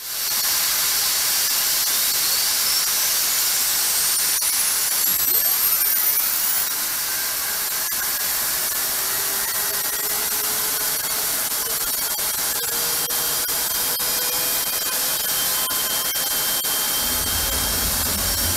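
An F-16's turbofan jet engine spooling up on a test stand inside a hush house. A rising whine climbs over a steady rushing hiss in the first few seconds, then the hiss holds steady, and a deep low rumble joins in near the end.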